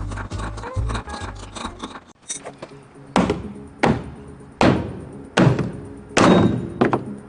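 Background music for about the first two seconds, then six hammer blows on the wooden crate base, roughly one every three-quarters of a second, each a sharp knock with a short ring.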